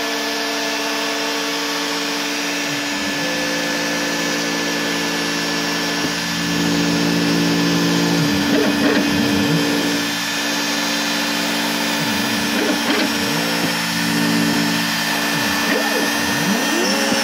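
Bosch Colt trim router on an OX CNC machine spinning a 1/32-inch single-flute bit and cutting foam board, with a vacuum running alongside. The machine's motor whine repeatedly glides up and down in pitch as the gantry speeds up and slows down.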